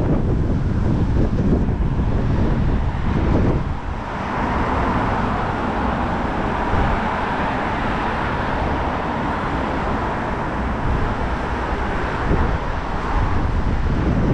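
Wind gusting on the microphone, then road traffic noise that swells from about four seconds in and fades away a few seconds before the end, as a vehicle passes.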